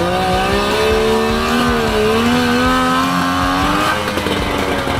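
Suzuki Jimny SJ10's three-cylinder two-stroke engine revving under load, its pitch rising and falling with the throttle, then easing off about four seconds in.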